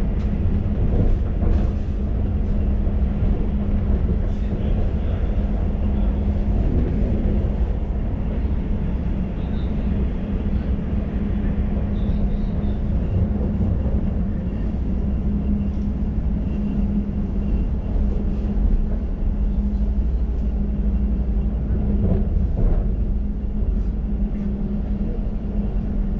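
An Elizabeth line Class 345 train running between stations, heard from inside the carriage: a steady low rumble of wheels on rail with a constant hum and a few faint knocks.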